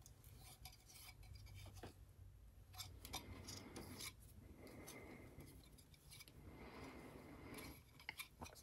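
Faint rubbing and light scratching of fingers wiping thin filament strings off a white 3D-printed plastic frame wall, with a few faint clicks as the part is handled.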